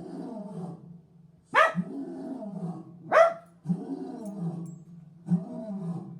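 A lion roaring in a series of low grunts, one about every second and a half, while a mixed-breed dog lets out two loud, high howling cries that fall in pitch, about a second and a half in and again near three seconds.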